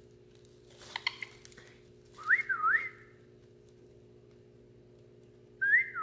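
Whistling: two quick swooping whistles, up and down twice, about two seconds in. Another whistle starts near the end, rising, dipping and then held on one note.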